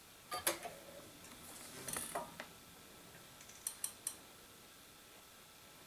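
Sharp plastic clicks and clacks as an IBM 5140 PC Convertible is restarted by hand: a couple of clicks about half a second in, a few more around two seconds, then a quick cluster of three or four near four seconds as the screen goes blank.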